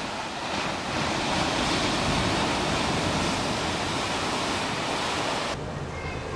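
Sea surf breaking and washing against the shore: a steady rushing of waves. About five and a half seconds in it cuts off abruptly to quieter water with a low steady hum.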